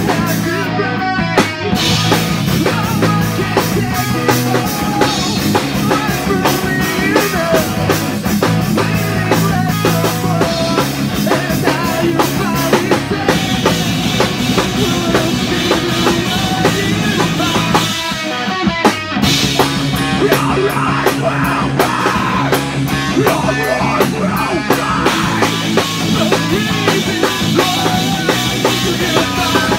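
Live rock band playing loudly: drum kit, bass guitar and electric guitar together, with a brief break about two-thirds of the way through before the band comes back in.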